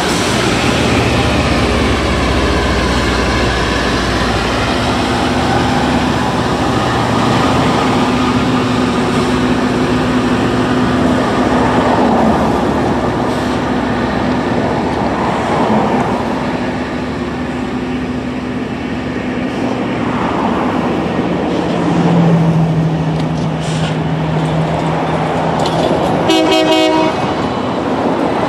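LORAM rail grinder train at work: grinding stones running against the rail, heard as a loud, steady roar with the machine's engines under it.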